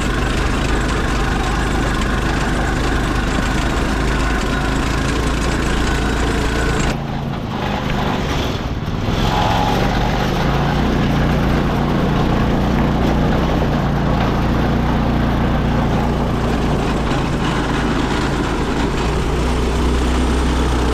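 Off-road go-kart's small engine running as the kart is driven over a dirt trail. There is a brief drop in level about seven seconds in, then a steady low hum.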